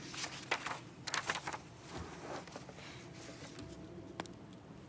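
Faint rustling of leaves and stems as a kumquat branch and a cut flower are handled close to a phone's microphone, in a cluster of strokes in the first second and a half, with a sharp click near the end.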